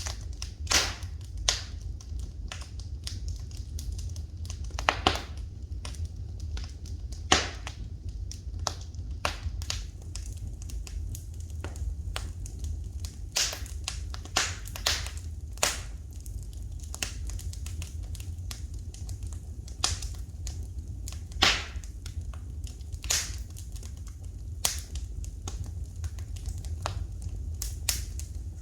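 Wood fire in a fireplace crackling, with irregular sharp pops of varying loudness, several louder ones standing out, over a steady low rumble.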